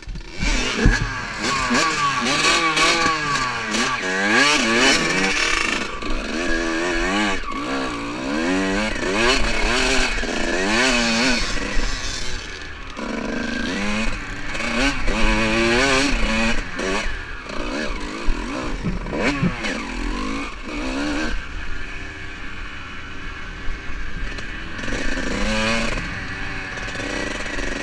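Dirt bike engine being ridden hard, its pitch rising and falling over and over as the rider works the throttle and gears, picked up from the rider's own helmet.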